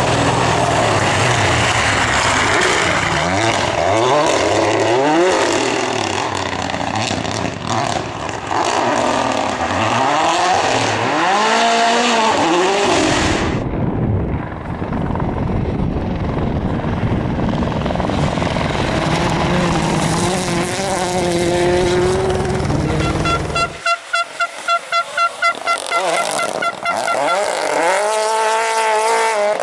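Rally cars at full throttle on a special stage, engines revving up and down through gear changes as they pass at speed. A few short sequences run back to back. Near the end comes a stretch of rapid, regular engine pulsing.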